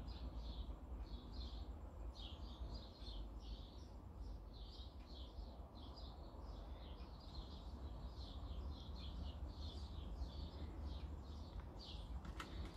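Small birds chirping steadily, short high chirps about three a second, over a steady low rumble. A single light click near the end.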